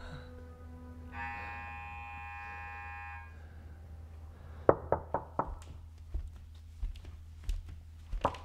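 Knocking on a door: a quick run of four sharp knocks about halfway through and another run of three near the end. Before them a low steady music tone gives way to a brief chord of ringing tones.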